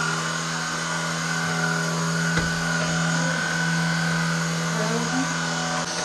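Vacuum cleaner running, its motor humming at a steady pitch just after spinning up.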